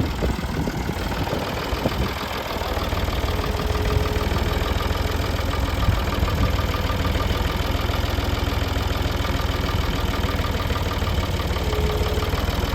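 A tractor engine running steadily at idle. It grows louder about two seconds in.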